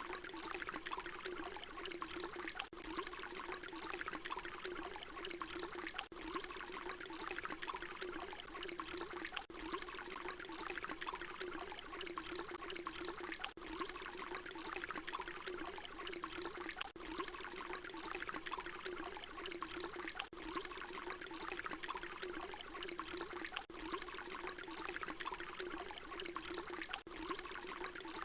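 Water pouring in a steady stream, with a bubbling, warbling low note under a splashing hiss. Brief dips in level come about every three and a half seconds.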